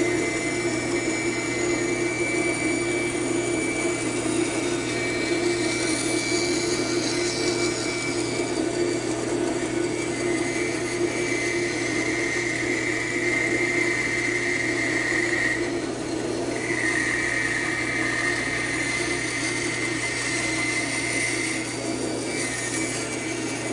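Band saw with a narrow 3/16-inch blade running and cutting through spalted wood. A higher whine from the cut comes in about halfway through and breaks off briefly twice as the workpiece is turned and fed.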